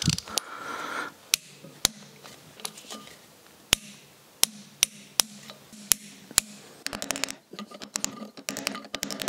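Metal clicks from a torque wrench and socket tightening a flywheel's retaining nuts, a sharp click every second or so, then a quicker run of small metal taps near the end.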